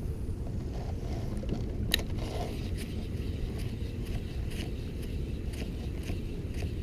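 Steady low rumble of wind buffeting the microphone out on a kayak, with scattered faint ticks and one sharp click about two seconds in.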